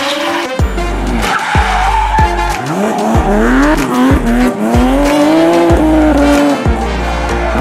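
Car engine revving up and down with tyre squeal of drifting, over music with a steady thumping beat about twice a second.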